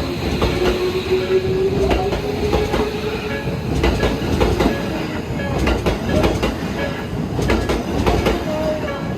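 Electric commuter train passing over a level crossing: wheels clattering over the rail joints in a run of clicks, with a steady motor tone that rises slightly early in the pass.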